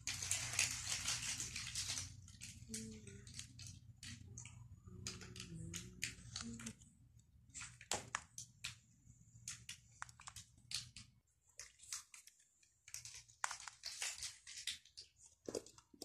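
Hair rustling and short clicks and knocks as a flat iron is handled and drawn through hair close to the microphone, loudest in a burst of rustling near the start. A low steady hum sits underneath and stops partway through.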